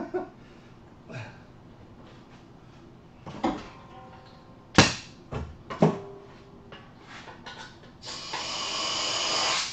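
A few knocks and clunks of equipment being handled, then, about eight seconds in, a steady loud hiss of rushing air starts.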